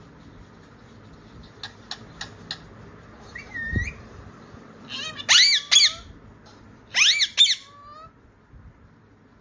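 Indian ringneck parakeet calls: a few soft clicks and a short whistle, then two loud bursts of shrill, arching whistled screeches, the first about five seconds in and the second about two seconds later. A dull bump sounds just before the first burst.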